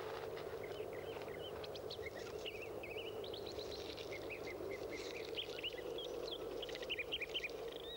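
Small birds chirping and twittering in quick short notes, which start about a second and a half in and grow busier towards the end, over a steady outdoor background rush.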